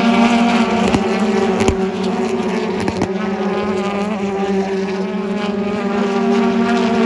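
Racing car engines running at steady revs, a loud drone that holds nearly one pitch, with a few sharp cracks in the first three seconds.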